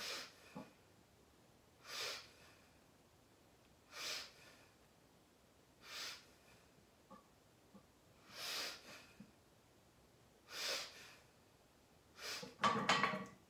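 A deadlifter's short, forceful breaths at about two-second intervals as he braces over the bar before pulling. Near the end comes a louder, longer, rougher breath.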